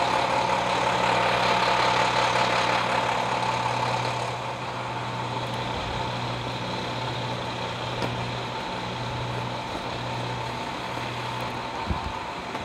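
A heavy engine idling with a steady low hum, louder for the first few seconds and then a little quieter.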